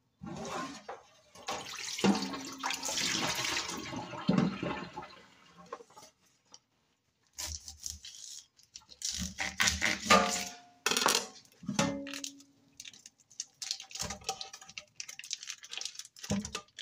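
Kitchen tap water running into a stainless steel sink for a few seconds, followed by clatter of dishes and utensils and the crinkle of a plastic ground-beef package being handled and cut open.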